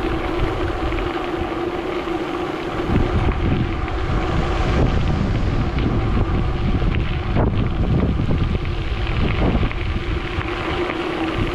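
Strong wind buffeting the microphone of a bicycle riding fast with a tailwind, a dense rumbling rush, with a steady hum underneath.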